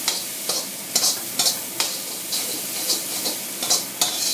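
Rice and garlic sizzling over high heat in a wok, with a spatula scraping and tossing it in short strokes about two to three times a second.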